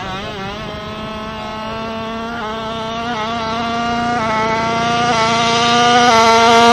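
Tuned Kawasaki Ninja 155cc two-stroke motorcycle engine accelerating hard through the gears, its high-revving note growing steadily louder as it approaches.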